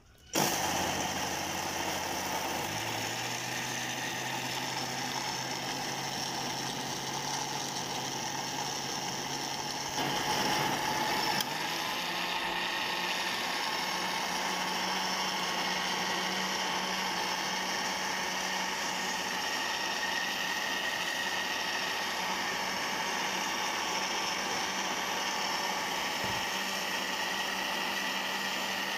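Electric blender motor starting up and running steadily, blending whole strawberries with water and sugar into juice. Its hum steps up in pitch twice, about three seconds in and again about eleven seconds in.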